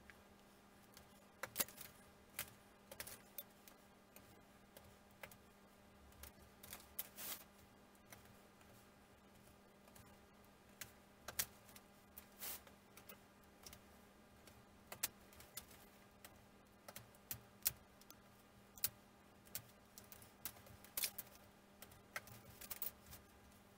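Scattered light clicks and taps of thin laser-cut wooden kit parts being pressed out of their sheet and set down on a paper plan, at an irregular pace, over a faint steady hum.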